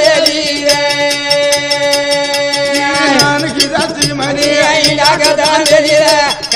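Banjara bhajan: men's voices singing a long held note that then breaks into a moving melody, over small brass hand cymbals struck in a steady beat.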